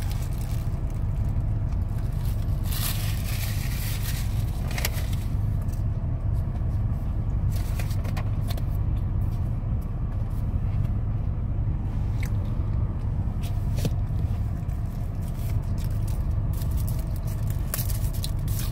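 Steady low rumble of a car running, heard inside the cabin, with scattered crinkles of a paper burger wrapper and chewing on top.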